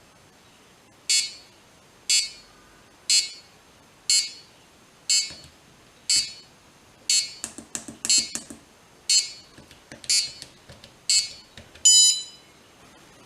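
Homemade Arduino airsoft time bomb's electronic buzzer beeping once a second, eleven short high beeps, the timer counting down. Faint clicks mix in between the beeps midway, and near the end the beeps give way to one longer, steady, higher beep.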